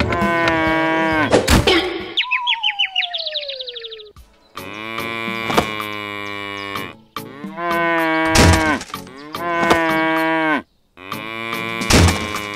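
Cow mooing sound effects: a run of long, drawn-out moos one after another with short breaks. About two seconds in comes a single tone sliding down in pitch.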